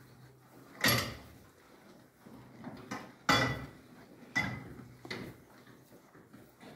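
Cattle knocking against a steel headlock feed barrier as they eat hay: four loud metal clanks, each with a brief ring, about a second in, at about three seconds, and twice more over the next two seconds, with smaller knocks between.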